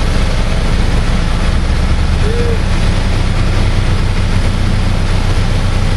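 Bulldozer's diesel engine running steadily with a loud low drone, growing heavier about a second and a half in.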